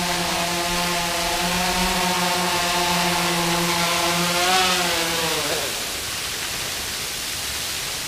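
DJI Phantom 3 Professional quadcopter's propellers and motors buzzing at a steady pitch while it hovers low, then falling in pitch and winding down to a stop about five and a half seconds in as it lands.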